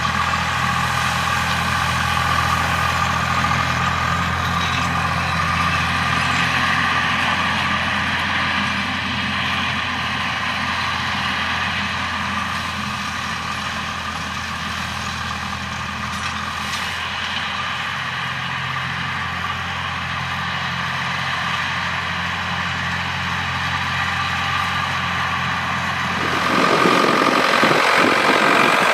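Volvo BM tractor's diesel engine running steadily. Near the end the steady hum gives way to a louder, rougher engine sound.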